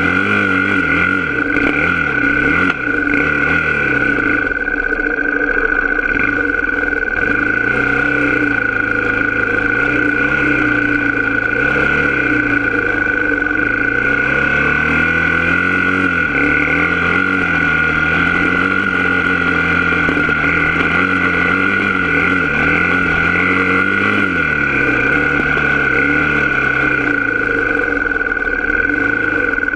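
Engine of an off-road trail vehicle running under load, its pitch rising and falling again and again as the throttle is worked over the trail, with a steady high whine over it.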